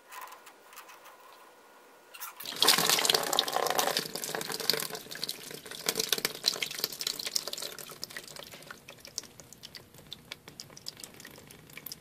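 Water pouring out of an opened PVC condensate drain T-trap and splashing into a plastic bucket. It starts about two and a half seconds in, flows hardest at first, then thins to a trickle and scattered drips.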